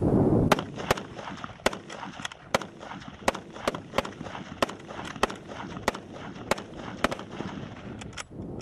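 An M1903 Springfield bolt-action rifle and an M16 fired together at a target: a rapid, uneven string of about twenty sharp rifle shots, starting about half a second in, with shots from the two rifles overlapping.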